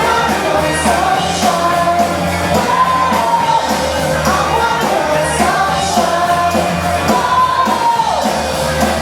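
Live house music played loud through a club sound system: a sung vocal melody over a steady bass line and beat, with crowd shouts and whoops mixed in.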